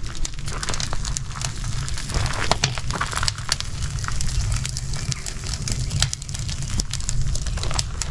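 Irregular crackling and popping from cooking, many sharp pops scattered throughout, over a steady low rumble.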